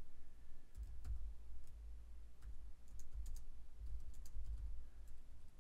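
Typing on a computer keyboard: irregular, scattered key clicks over a steady low hum.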